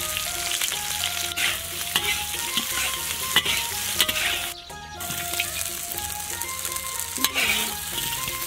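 Shrimp sizzling in hot oil in a wok as they are stir-fried with a metal spatula, with sharp clacks and scrapes of the spatula on the wok. The sizzle breaks off briefly about halfway through, then resumes.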